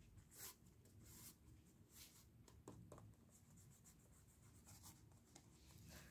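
Faint rustling and rubbing of paper as fingers handle a small paper strip and press it down onto a journal page, in a few short scratchy strokes.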